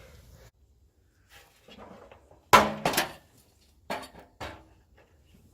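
A sharp metallic clank about halfway through, a second one just after, then a few lighter clinks: metal tools and parts being knocked and handled during work on a car door hinge.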